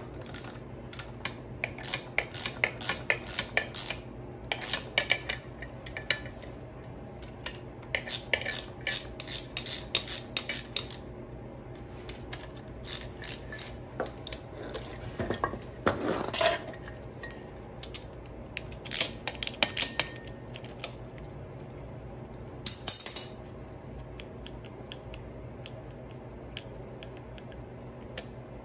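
Metal parts clinking and clattering in irregular bursts as a car's front strut assembly, with its coil spring and steering knuckle, is handled and turned, with a couple of short scraping sounds.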